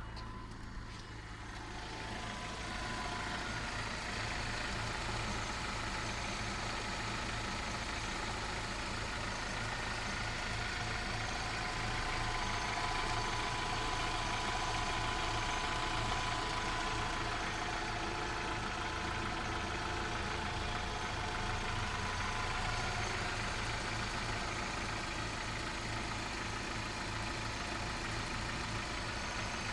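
Volkswagen Vento's 2.0-litre AGG four-cylinder petrol engine, with 260,000 km on it, idling steadily on petrol at about 800 rpm. It grows louder about two seconds in, then holds an even note.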